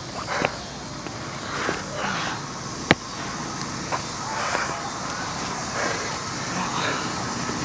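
Outdoor skatepark background with one sharp clack about three seconds in and a few fainter knocks.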